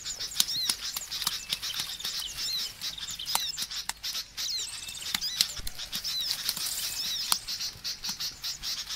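Small birds chirping continuously in quick, high repeated notes, with scattered sharp clicks mixed in.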